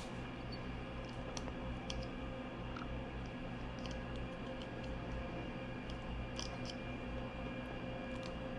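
Faint scattered clicks and taps of small parts and wiring connectors being handled, over a steady low hum.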